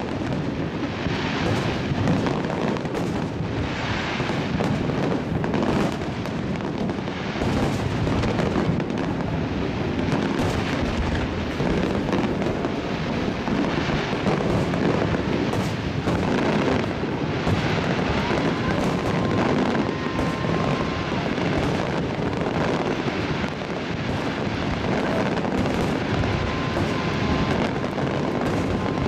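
Fireworks display: a dense, continuous barrage of aerial shells bursting, with booms and crackling. A steady high tone sounds twice in the second half, each time for about three seconds.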